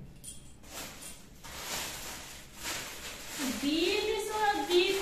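Soft rustling and a few light knocks, then about three and a half seconds in a person's voice starts a long, wavering, drawn-out note.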